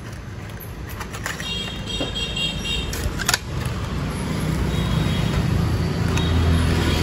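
Street traffic with a vehicle engine running and growing louder in the second half. Over it come a few clicks and rustles as a styrofoam takeaway box is handled and closed.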